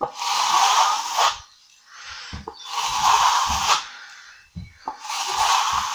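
Steel plastering trowel sweeping across a wet skim coat of Multi-Finish plaster: three long scraping strokes of about a second each, smoothing the surface flat.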